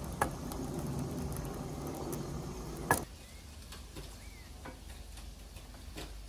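Sliced onions frying in a non-stick pan, stirred with a wooden spatula: a low sizzle and scraping with the spatula clicking against the pan, the loudest click about three seconds in. After that the sound drops to a quieter background with a few faint taps.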